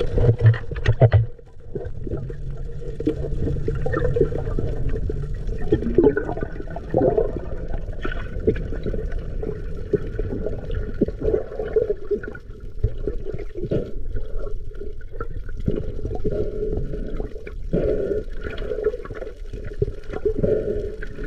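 Muffled water sloshing and bubbling heard from an underwater camera, with many small clicks and gurgles, after splashy surface noise that cuts off about a second in.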